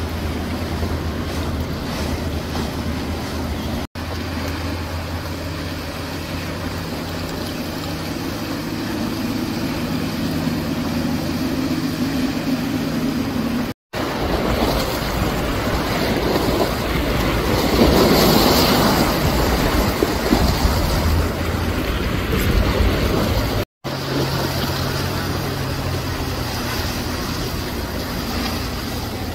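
Outboard motors on small center-console boats running at speed, a steady engine drone with water rushing along the hulls. The sound breaks off abruptly three times, and in the middle stretch a loud rushing swells and then fades.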